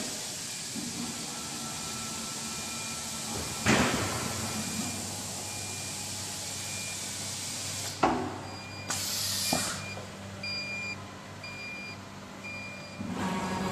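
Machine noise from a three-spindle ATC CNC router with an automatic loading table: a steady hum with a few sharp knocks and a brief hiss about nine seconds in. Short repeated beeps come in near the end.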